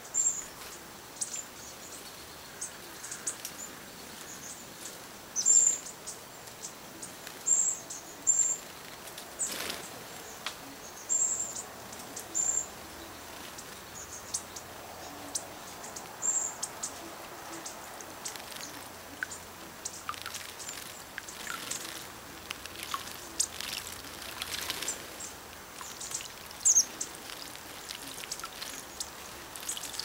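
Small songbirds chirping around a stone birdbath: repeated short, high chirps, with brief bursts of splashing as birds flutter and bathe in the water.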